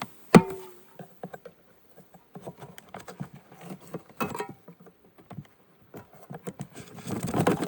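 A sharp knock about half a second in as the wooden bee package is bumped down to drop the bees off the can. It is followed by many small clicks and scrapes as the syrup can is worked out of the package, with a louder, denser scraping near the end.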